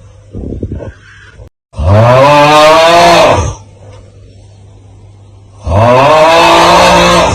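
The 'Aauuggh' TikTok meme sound: a loud, drawn-out, strained 'aauuggh' cry in a low voice, heard twice. Each lasts about two seconds, with the pitch rising then falling, and a brief quieter rasp comes before the first.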